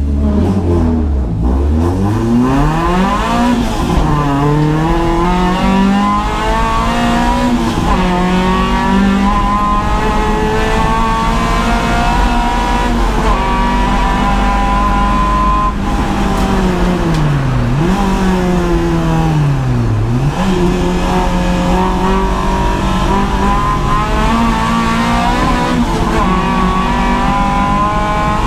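Renault Clio 172's 2.0-litre four-cylinder engine heard from inside the stripped cabin. It pulls away and climbs through the gears, dropping in pitch at each upshift, then runs at high revs. In the second half the revs fall steeply and climb back twice.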